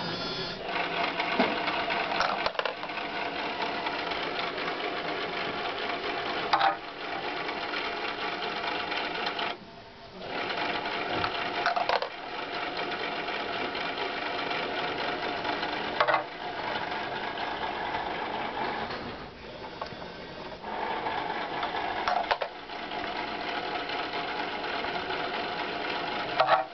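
Small electric motor of a homemade ping-pong-ball sorting machine running with a steady whir, broken by a sharp knock every four or five seconds as the mechanism handles a ball; the whir drops away briefly twice.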